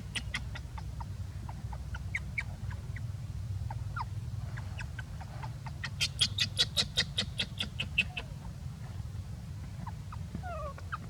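Scattered short, high animal chirps and squeaks, with a rapid chattering run of about a dozen sharp notes around the middle, over a steady low rumble.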